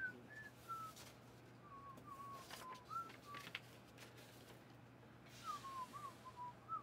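A person softly whistling to themselves: a wandering string of short single notes. A few light clicks come in the middle.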